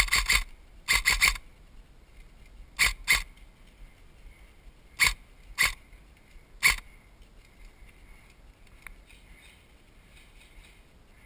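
Airsoft rifle firing single shots, each a short sharp crack, about a dozen in quick groups of one to three over the first seven seconds, then stopping.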